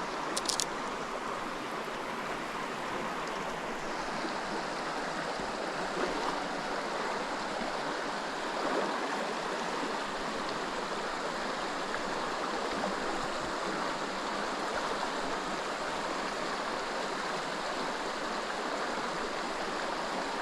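Creek water running steadily over rocks, an even rushing and babbling.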